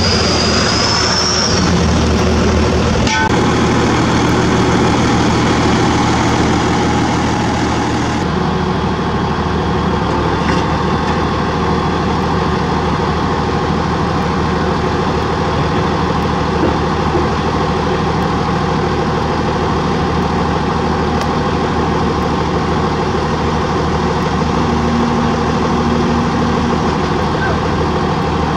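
Heavy diesel engine running steadily at a constant pace, from a bulldozer or the self-loader truck working around it. A thin high whine fades out in the first second or two, and there is a brief click about three seconds in.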